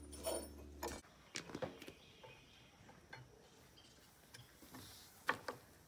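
Faint scattered clicks and light knocks as a V-belt is fitted onto a small gas engine's pulley and a grain mill's flywheel is turned by hand; the engine is not running.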